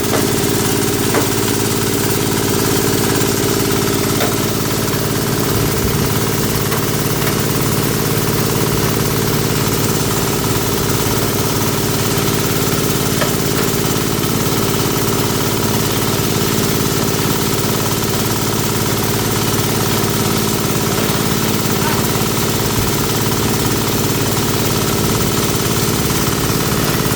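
Engine-driven chopper-grinder for compost and manure running steadily, a constant mechanical drone with a rattling haze over it.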